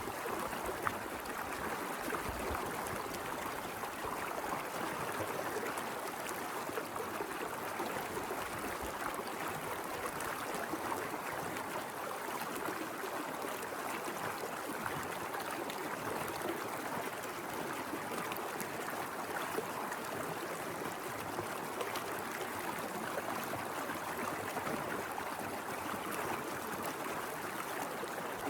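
A small mountain river running over rocks: steady rushing and babbling water, even in level throughout, with small splashes and gurgles flickering through it.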